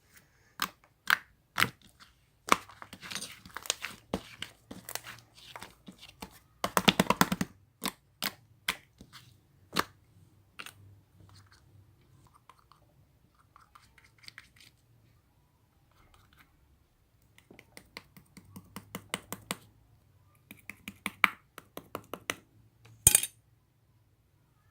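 Hands squishing and pressing clay slime, making a run of sharp clicking pops and squelches. A dense crackling burst comes about seven seconds in, it goes quieter in the middle, and a loud single snap comes near the end.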